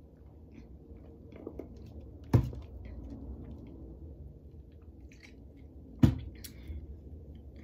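A person drinking: sips and swallows from a plastic cup and then from a flip-top plastic water bottle, with two sharp knocks about two and a half and six seconds in.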